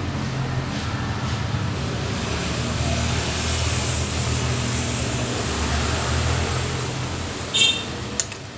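Steady rumble of passing road traffic that swells and then fades. Near the end come a short high-pitched squeak and a sharp click.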